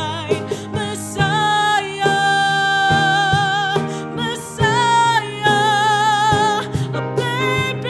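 Worship song music: a voice holds long notes with vibrato over steady instrumental accompaniment.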